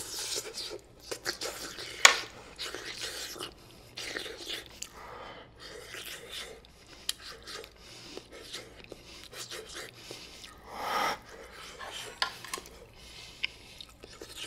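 A person eating a scalding-hot spoonful of Korean steamed egg: chewing and huffing breath through the mouth against the heat, with light clicks of a spoon and chopsticks on dishes, the sharpest about two seconds in.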